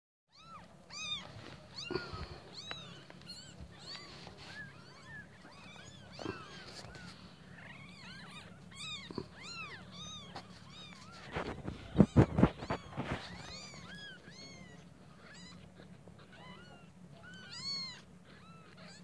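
Newborn kittens mewing: many short, high-pitched cries, one after another, each rising and falling in pitch. About twelve seconds in there is a brief burst of loud knocks and rustling.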